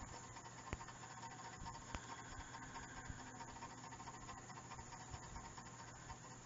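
Faint room tone: steady low hiss and electrical hum, with two light clicks about three-quarters of a second and two seconds in.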